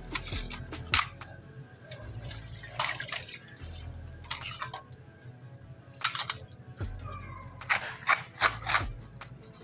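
Kitchen sounds at a food stall: scattered clinks and knocks of utensils and a few short splashy bursts of liquid, over a low steady hum and faint background music.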